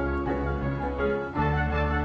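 Background music: sustained chords over a steady bass note, with the chord changing about one and a half seconds in.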